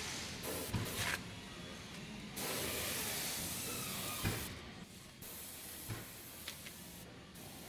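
Spray gun spraying asphalt-emulsion undercoating compound into a wheel well, hissing in bursts that start and stop, with a few sharp clicks. The longest and loudest burst lasts about two seconds, starting about a third of the way in.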